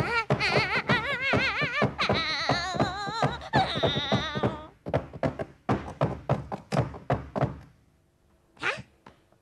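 Cartoon sound effects: a fast series of knocks and thuds, overlaid for the first four and a half seconds by a warbling tone that wavers up and down. The knocking stops about seven and a half seconds in.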